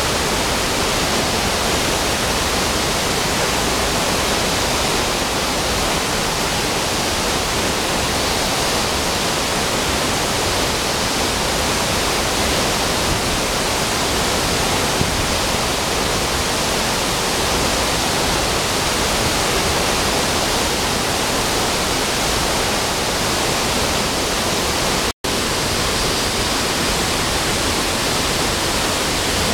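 Steady rush of water from a waterfall and a stream cascading over boulders. The sound cuts out for an instant a few seconds before the end.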